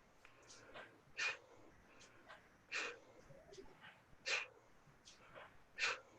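Sharp, forceful exhales in time with single-arm kettlebell swings, one about every second and a half, four in all, with fainter inhales between them.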